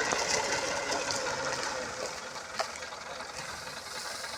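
Engine-driven wheat thresher running steadily, growing gradually fainter, with a few sharp clicks.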